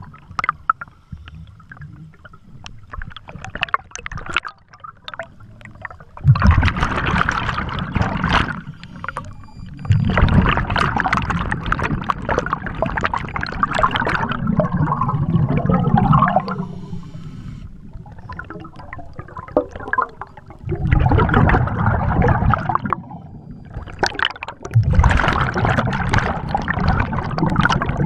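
Scuba diver breathing through a regulator underwater: four long, loud rushes of exhaled bubbles a few seconds apart, with quieter spells between them.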